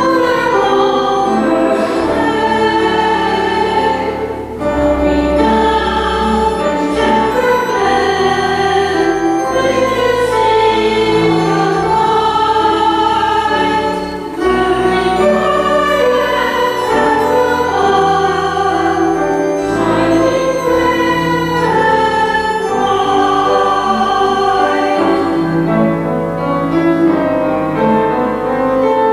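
Mixed choir singing with organ accompaniment, long bass notes held beneath the voices, with short breaks between phrases about four and fourteen seconds in.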